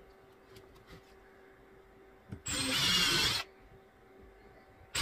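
Cordless impact driver with a drill bit pre-drilling a hole into a cedar strip: one burst of about a second, starting about two and a half seconds in. A second burst begins right at the end.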